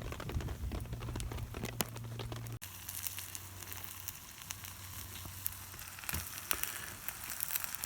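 Rice heating in a metal mess kit pan over a camp stove, with scattered sizzling crackles and ticks as it steams and begins to stick. A low steady hum stops abruptly about two and a half seconds in, where the sound jumps.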